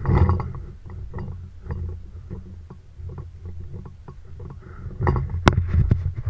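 Rumbling handling noise and light knocks from a paintball marker and gear carried by a walking player, louder at the start and again near the end, with one sharp click about five and a half seconds in.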